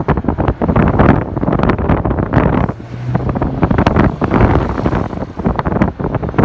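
Wind buffeting the microphone in irregular gusts over the noise of road traffic, with a brief low engine hum about three seconds in.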